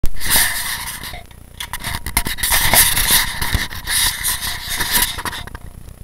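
Handling noise from a hand-held Tachyon XC helmet camera: the hand scrapes and rubs right against the camera and its microphone, with many small clicks and knocks. It comes in two loud stretches with a short lull about a second in.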